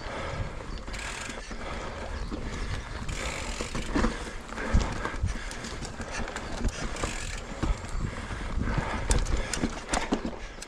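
Electric mountain bike being ridden over rough ground: the bike rattles with irregular clicks and knocks over a constant rolling noise, with low wind rumble on the chest-mounted microphone.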